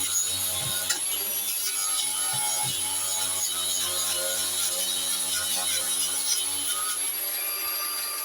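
Wire brush scrubbing old paint off a metal MGB cooling fan, a steady rasping that keeps on without a break.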